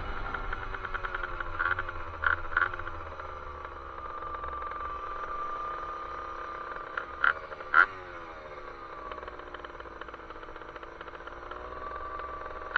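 Honda Hobbit two-stroke moped engine with a Stage 6 racing R/T MK1 cylinder kit, running under way, its pitch falling and rising several times as the throttle is eased and opened again. A few short sharp bursts stand out, some about two seconds in and more past halfway, over a low rumble of wind on the microphone.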